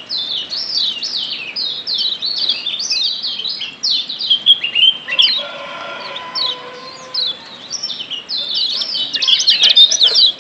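Kecial kuning (Lombok yellow white-eye, a Zosterops) giving rapid, excited 'ciak' chirps: quick downward-sweeping high notes, several a second. The chirps thin out midway, where a fainter drawn-out lower sound is heard under them, and crowd together again near the end.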